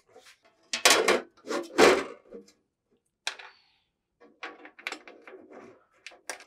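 Sheet-metal housing panel of a laser engraver being handled and set into place: two loud metallic clatters about a second in, a sharp click a little after the middle, then a run of lighter taps and rattles as the panel is fitted.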